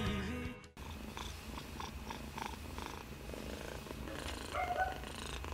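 Kitten purring steadily, a low continuous rumble, while being stroked. A guitar song ends in the first moment, just before the purring comes in.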